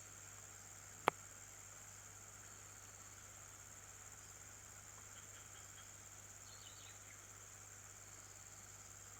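Steady high-pitched insect drone in the background, with a single sharp click about a second in and a few faint high chirps about two-thirds of the way through.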